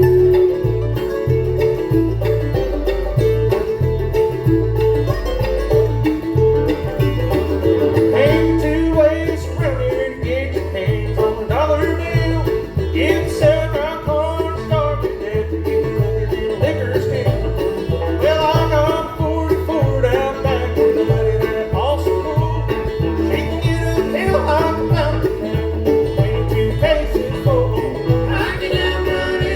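Bluegrass band playing live, with a banjo rolling out front over guitar and a steady, evenly pulsing low beat.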